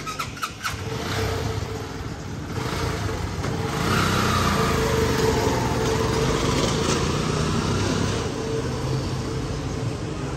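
A motor vehicle engine running steadily, louder from about four to eight seconds in, with a few sharp clicks at the very start.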